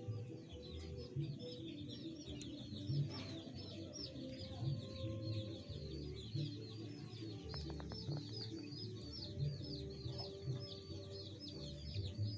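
Small birds chirping fast and high, several calls a second, over soft low clucking from the junglefowl pair in the pen.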